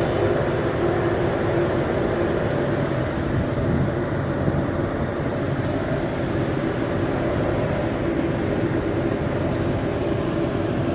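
Generator set engine running steadily with an abnormal, uneven note that the mechanic calls a 'missing' type sound, like a misfire.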